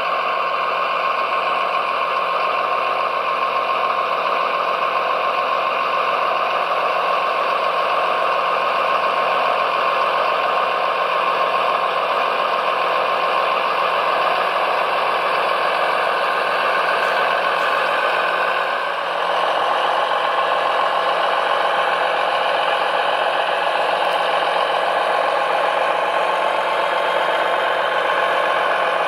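Radio-controlled scale construction machines running: a steady mechanical whine with a held high tone and a light rattle, dipping briefly about two-thirds through.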